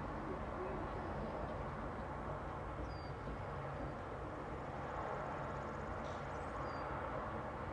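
Steady low outdoor background rumble, with two faint short high chirps, about three seconds in and again near the end.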